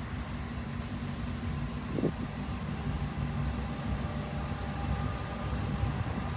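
Colas Rail Class 70 diesel-electric freight locomotive approaching, a steady low engine rumble that grows louder near the end, with a faint steady whine joining in about halfway through.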